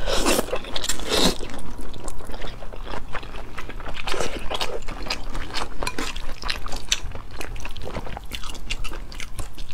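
Close-miked eating of wide cold skin noodles (mianpi) in sesame sauce with shredded cucumber and carrot: a slurp at the start and another about a second in, then wet chewing with small crunches.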